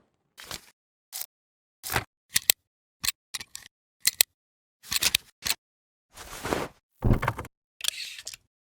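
Film-burn transition sound effects: a string of short mechanical camera clicks and clacks, irregularly spaced about half a second to a second apart, with longer noisy swishes in the last few seconds.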